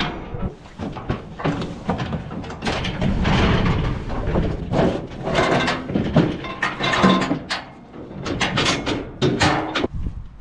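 Galvanised steel cattle crush rattling and clanging as cattle shove through it, with repeated sharp metallic bangs of gates and bars.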